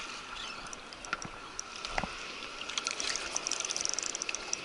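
Spinning fishing reel clicking in quick runs of ticks, thickest in the second half, over water lapping against rocks, with a soft knock about two seconds in.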